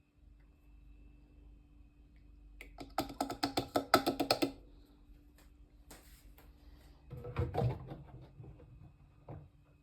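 Fisher & Paykel MW059NZ washing machine's control panel beeping a quick run of electronic tones, as when buttons are pressed to set the cycle, over a faint steady electrical hum. About seven seconds in, a low rumbling thud comes from the machine.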